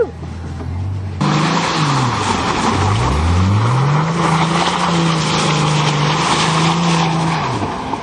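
Ford car's engine revving hard while its tires spin on loose dirt, with a loud rush of spinning tires and thrown dirt starting suddenly about a second in. The revs dip, climb and hold high, then drop off near the end.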